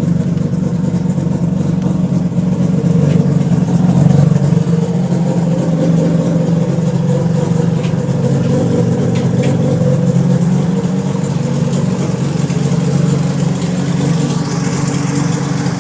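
Freshly rebuilt Mazda 13B rotary engine of a 1993 RX-7 idling steadily just after its first start-up, swelling slightly about four seconds in.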